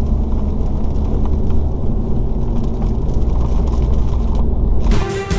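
Steady in-cabin road noise of a Volkswagen Golf VII driving through heavy rain on a motorway: a deep rumble of tyres on the wet road with the hiss and light patter of rain on the car. Music starts near the end.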